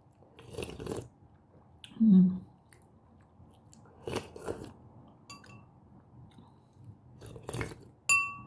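Close-miked eating of sinigang soup: three short slurps from a spoon spaced a few seconds apart, with chewing between them, and a brief low hum from the eater about two seconds in. Near the end a metal spoon clinks against a dish and rings briefly.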